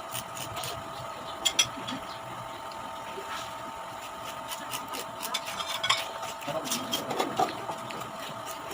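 Eating sounds at a plate of sliced jicama: scattered crisp clicks and clinks, loudest as a pair about a second and a half in.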